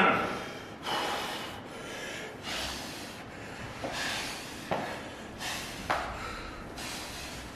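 A man's heavy, forceful breathing during a heavy deadlift session, a hissy breath roughly every second, with a couple of short sharp clicks from gym equipment around the middle.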